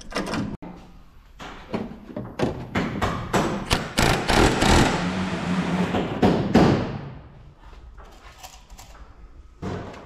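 Pneumatic rivet gun driving solid rivets into the aluminium sheet of a STOL leading-edge cuff: a run of sharp knocks, then a longer rattling burst that stops about two-thirds of the way through.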